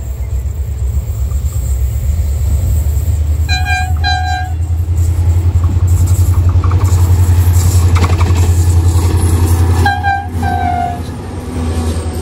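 HGMU diesel-electric locomotive passing at speed at the head of a passenger train. Its deep engine rumble builds to loudest as it goes by. The horn gives two short double toots, one a few seconds in and one as the locomotive comes alongside, and then the coaches begin rolling past.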